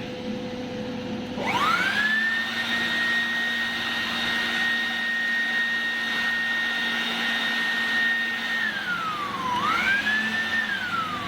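Handheld electric air blower at its top speed setting. Its motor spins up to a steady high whine and holds it for about seven seconds, then slows, is pressed back up to full speed, and winds down again near the end.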